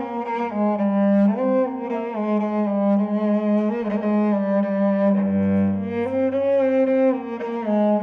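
Solo cello, bowed: a melody of short stepping notes played over a held low drone note.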